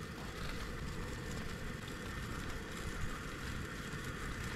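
Steady low rumble with an even hiss, outdoor background noise with no distinct events.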